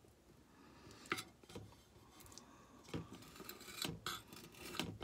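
Faint scraping with a few light clicks and knocks, from wax being stirred together in a small silver tray.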